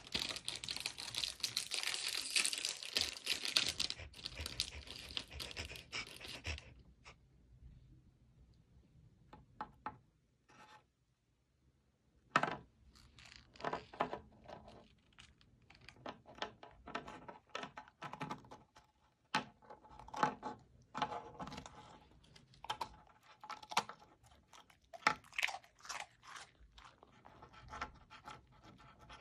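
A plastic Oreo packet crinkling for the first several seconds. After a lull, a Samoyed licks and nibbles at an Oreo cookie on a table, making irregular wet clicks and small crunches.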